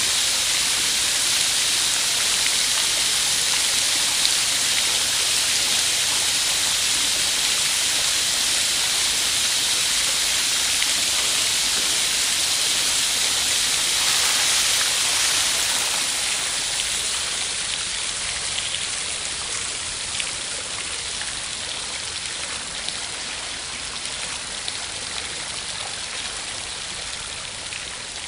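Running, splashing fountain water, a steady rush. From about halfway through it fades gradually and thins toward scattered drips as the flow dies down.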